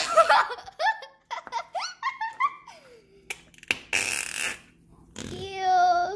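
Flarp noise putty squeezed in its plastic cup, pushing trapped air out in fart-like squelches. The longest is a buzzy one near the end. A child is giggling in the first part.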